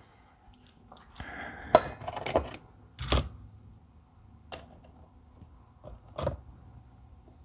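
Metal parts and hand tools of a diesel injection pump clinking and knocking during disassembly: about half a dozen irregular clinks, one of them ringing briefly about two seconds in.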